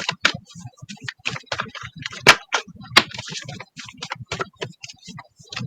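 Tarot and oracle cards being shuffled and laid down by hand: a quick, irregular run of clicks and light slaps.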